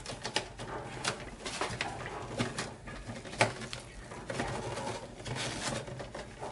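Gloved hands pulling and bending stiff insulated copper wire inside an electrical breaker panel: rustling, with scattered small clicks and taps of wire against the panel.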